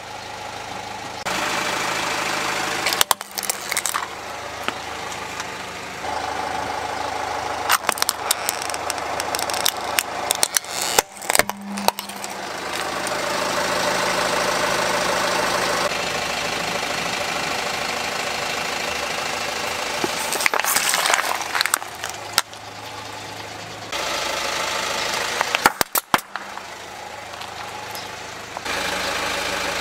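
A car's engine running as its tyre rolls over plastic toys, with sharp cracks and crunches as the plastic breaks, several times. The engine sound changes abruptly from clip to clip.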